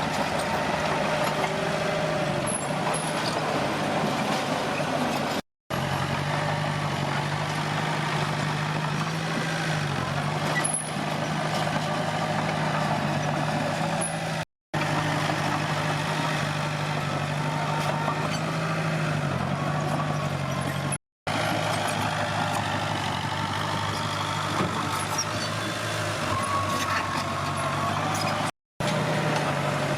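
Diesel engine of a Komatsu D21P crawler bulldozer running steadily under work, its pitch sagging briefly a couple of times. The sound drops out for a split second four times.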